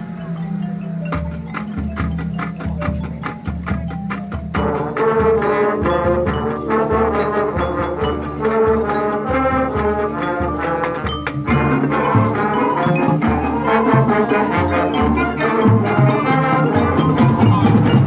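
High school marching band playing its field show: drums and mallet percussion over low brass, then the full brass section comes in with loud chords about four and a half seconds in, and the music grows louder toward the end.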